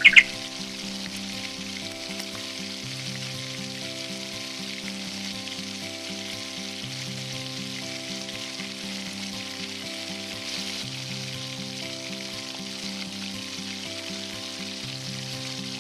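Chicken frying in a miniature clay pot over a small wood fire: a steady sizzle, with soft background music of held notes underneath.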